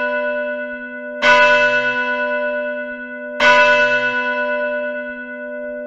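A deep bell struck twice, about two seconds apart, each strike ringing on and slowly fading over the dying ring of an earlier strike, with a steady low hum beneath.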